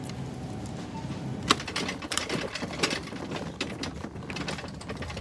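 Shopping cart rattling and clattering as it is pushed along the store floor. A sharp knock comes about a second and a half in, followed by a run of uneven clicks and rattles.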